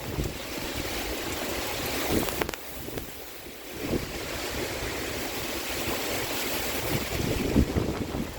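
Heavy rain pouring down in a violent storm, a steady hiss, with strong wind gusts buffeting the microphone a few times.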